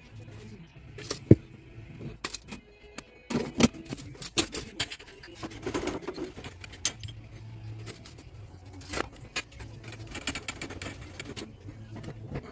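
Irregular clicks, knocks and clinks of tools and copper pipe being handled and positioned, with one sharp click a little over a second in.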